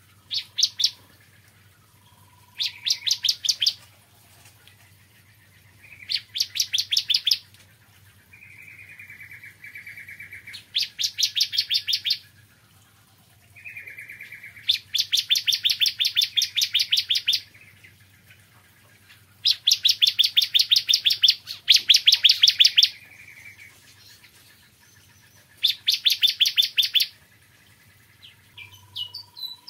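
Bar-winged prinia (ciblek kristal) singing: fast, high trills of rapid repeated notes, each one to three seconds long, coming every few seconds. Some trills are led by a lower buzzy note.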